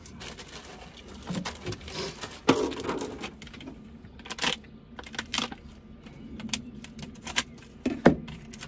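Handling sounds of a plastic food pack of sliced ham being picked up and opened: crinkling plastic with scattered clicks and knocks on the counter, the sharpest about two and a half seconds in, around four and a half seconds and near the end.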